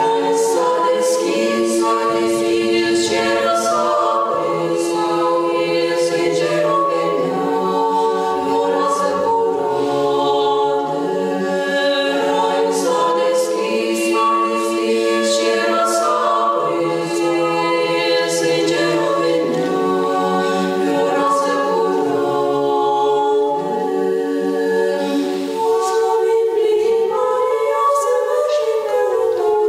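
Women's choir of Orthodox nuns singing a Christmas carol a cappella in several voice parts, with long held notes.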